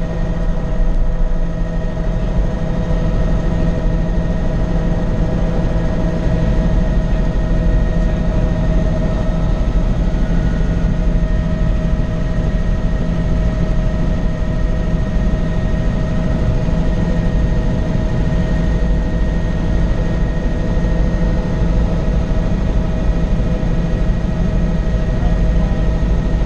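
Helicopter in flight, heard from inside the cabin: a loud, steady drone of engine and rotor with a high whine running through it.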